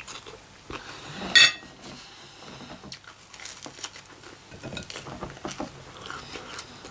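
Cutlery clinking and scraping on a plate while eating, with one sharp, loud clink about a second and a half in and faint clicks scattered through the rest.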